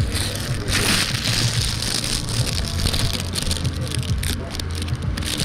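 Open-air street market ambience: a steady low hum under a rushing hiss, with no clear voices.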